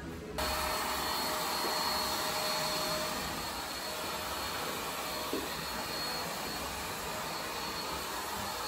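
Salon hair dryer switched on about half a second in and running steadily, blowing over freshly cut hair: a constant rush of air with a faint high whine.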